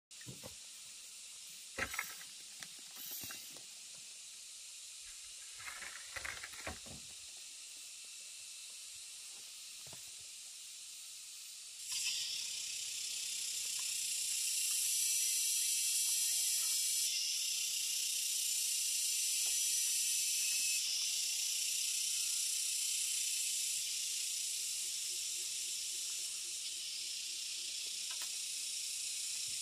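Steady high-pitched insect drone, growing much louder about twelve seconds in, with a few sharp knocks of bamboo poles being handled in the first seven seconds.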